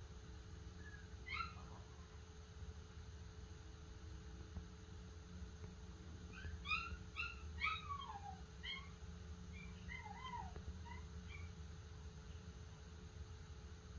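Teacup Yorkie puppy crying in her crate with faint, high, falling whines and yelps: one about a second in, a run of several from about six to eight and a half seconds, and a few more around ten to eleven seconds. A low steady hum runs underneath.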